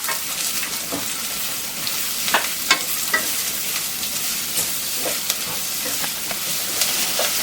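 Onions and green chillies sizzling in hot oil in a tawa while being stirred and sautéed, with a few short knocks of the utensil against the pan.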